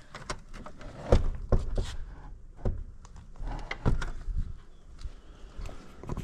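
Old wooden panelled door being pushed and rattled by its handle, knocking and thudding in its frame several times, the loudest knock about a second in.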